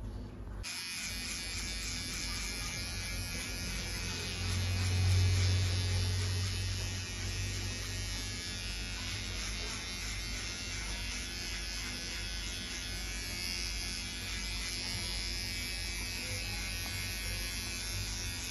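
Electric hair trimmer buzzing steadily as it cuts a skin fade at the back of the neck. It switches on about a second in and swells louder for a couple of seconds around the middle.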